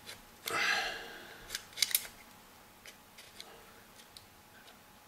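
Slide of a disassembled full-metal Colt 1911 CO2 airsoft pistol being handled: a short scrape, then two sharp metal clicks about a second and a half in, followed by a few faint ticks.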